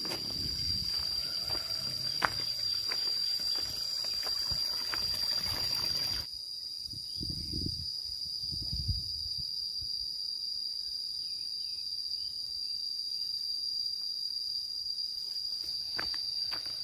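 Steady high-pitched insect drone, one unbroken tone. Over it come rustling and a sharp click in the first few seconds, and a few soft low thuds; the rustling drops away abruptly about six seconds in.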